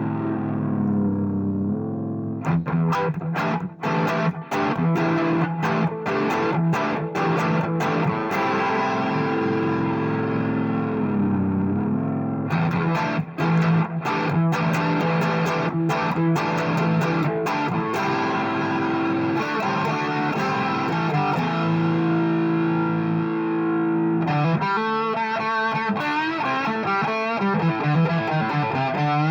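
Electric guitar played through distortion, with held chords broken by runs of quick, sharp strokes. A fast, rapidly repeating passage starts near the end.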